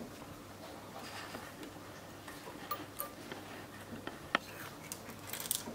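Faint, scattered small clicks and taps of metal tweezers against the overlocker's looper and thread guides as thread is worked through them, with one sharper click about four seconds in and a few quick ticks near the end.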